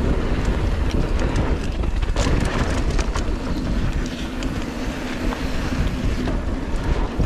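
Wind buffeting the microphone over the rumble of a Polygon Siskiu T7 mountain bike's tyres rolling on a dirt trail, with scattered clicks and rattles from the bike.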